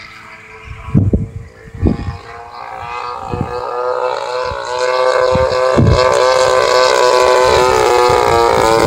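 Radio-controlled P-47 model airplane's motor and propeller running in flight, growing steadily louder as it comes closer and then holding loud and steady as it passes low. Two brief low thumps sound about one and two seconds in.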